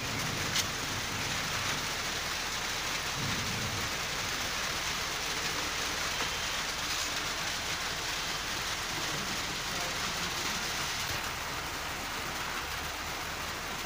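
Steady rain falling: an even, unbroken hiss with no distinct drops or rumbles standing out.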